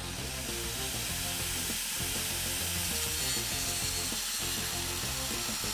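Angle grinder with a thin disc cutting into the truck's steel body mount, a steady high grinding noise that begins right at the start and holds even throughout.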